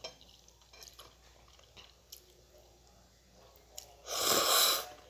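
Person eating instant noodles: soft chewing and small wet mouth clicks, then one loud slurp of about a second as a mouthful of noodles is sucked in, near the end.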